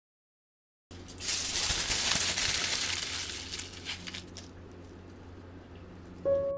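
Aluminium foil being crumpled by hand into a ball, crinkling and crackling loudly for about three seconds, then dying away. Piano music comes in near the end.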